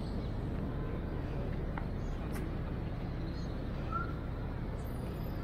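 Steady low rumble of city traffic, with a faint short bird chirp about four seconds in.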